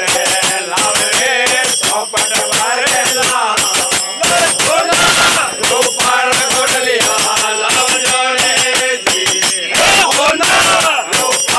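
A group of men singing a Rajasthani devotional bhajan in unison, over a fast steady beat of hand-clapping, a hand drum and jingling percussion.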